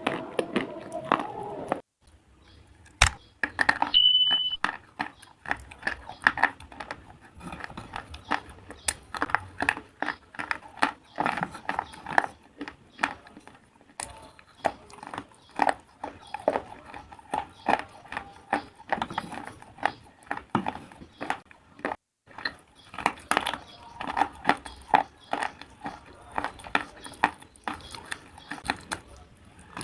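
Close-up crunching and chewing of pieces of slate, sharp crisp cracks coming several a second in irregular runs with brief pauses. A short high beep sounds about four seconds in.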